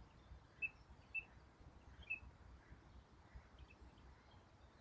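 Quiet forest ambience: a faint low outdoor rumble with a few short, high bird chirps in the first two seconds.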